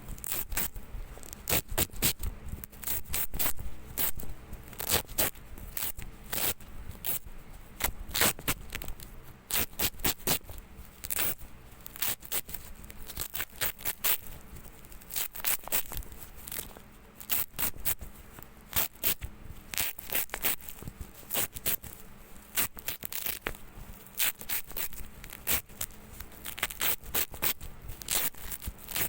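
Hook-and-loop (Velcro) tape being pulled apart over and over, a series of short ripping rasps, irregular and a few a second.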